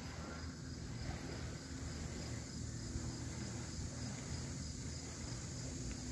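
Bees, bumblebees among them, buzzing as they fly around flowers. Behind them runs a steady, evenly pulsing high trill of crickets.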